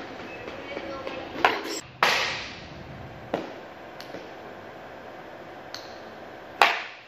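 Softball bat striking balls off a batting tee: several sharp cracks. The loudest come about two seconds in, with a short ringing tail, and again near the end, with lighter knocks between them.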